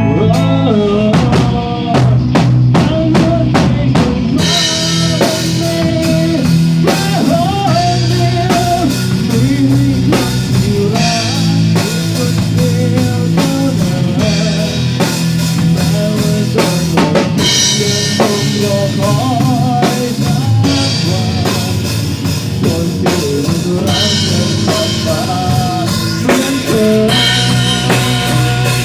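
Instrumental break of a pop-rock song played by a band: a drum fill about a second in, then a full drum kit keeping a steady beat with kick and snare under bass and a lead melody line.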